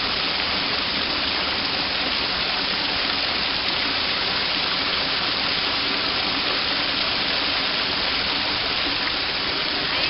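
Water spilling over a small stone weir in a thin waterfall, a steady rushing with no change.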